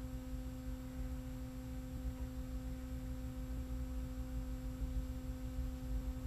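Steady low hum, one pitch with its overtones, over a faint low rumble.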